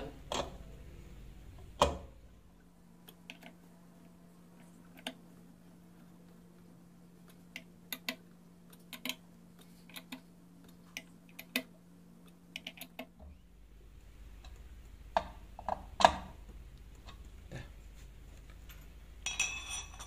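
Metal Torx (T10) key clicking and tapping against the stator bolts of a washing machine's direct-drive motor as they are tightened: scattered light ticks, with a louder knock about two seconds in and a cluster of louder clicks near three-quarters through.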